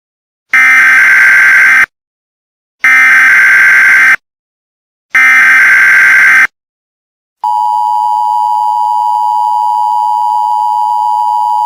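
Emergency Alert System signals: three short bursts of SAME header data tones, each about a second long with a second's gap between, then the steady two-tone EAS attention signal starting about seven seconds in and holding to the end.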